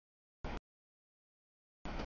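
Brief snatches of a passing freight train's rolling noise, heard as two short bursts, about half a second in and near the end, each cut off abruptly by dead silence: the audio feed is dropping out.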